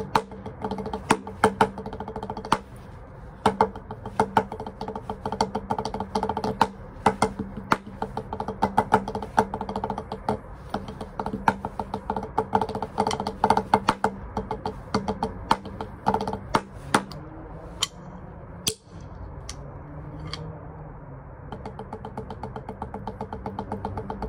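Drumsticks playing fast freestyle chops on a rubber drum practice pad: rapid runs of taps broken up by sharp accented strokes. There is a brief break about three-quarters of the way through, then lighter strokes that build back up.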